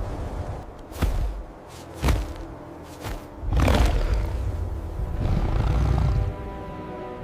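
Dramatic film score with two sharp hits, then a swelling deep rumble; held sustained tones come in about five seconds in.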